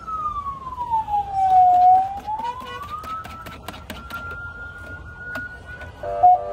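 A vehicle siren sounding a single pure tone that holds high, sweeps down and back up over about three seconds, then holds high again and starts another dip at the end. Short clinks and clicks are scattered through the middle.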